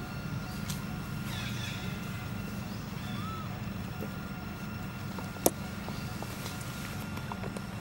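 Steady low rumble of background ambience, with a single sharp click about five and a half seconds in and a few faint chirps.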